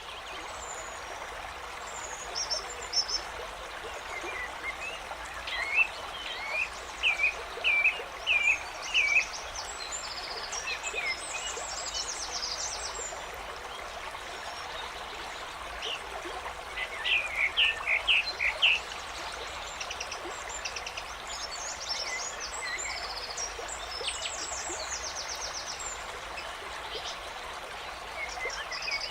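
Nature ambience sound effect: a stream running steadily, with birds chirping in short phrases every few seconds.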